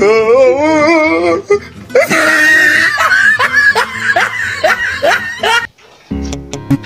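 Loud, drawn-out laughter: a wavering laugh at first, then a run of rising 'ha' pulses, two or three a second, that cuts off suddenly near the end. Background music with plucked notes starts right after.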